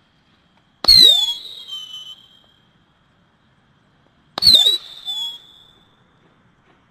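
12-shot whistling and crackling sky-shot firework firing two shots about three and a half seconds apart. Each is a sudden pop followed by a high whistle that fades out over about a second and a half.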